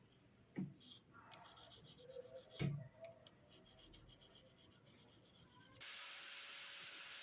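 Two short knocks about two seconds apart, the second louder, with faint rubbing and handling of wooden pieces between them. A steady hiss starts abruptly about six seconds in.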